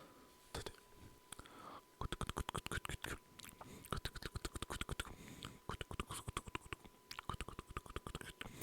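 Close-up ASMR mouth sounds: wet clicks and smacks right at the microphone, a few scattered at first, then rapid runs of clicks from about two seconds in.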